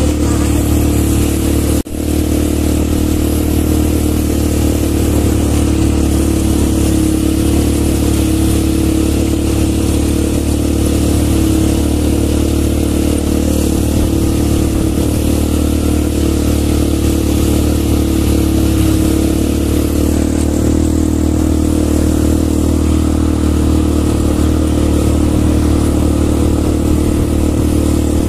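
ATV engine running at a steady speed with an even, unchanging drone, briefly dropping out about two seconds in.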